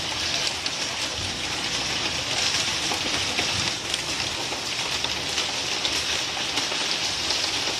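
Heavy rain mixed with hail falling on wet concrete: a steady hiss with scattered sharp ticks of hailstones striking the ground.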